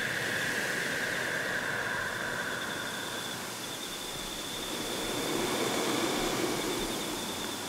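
Experimental ambient soundscape of steady hiss-like noise with a held high tone that fades out about three seconds in, and a lower hum that swells and recedes near the end.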